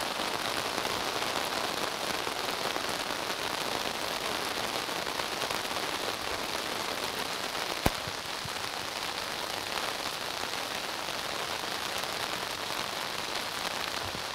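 Steady rain falling, an even hiss of drops, with one sharp click about eight seconds in.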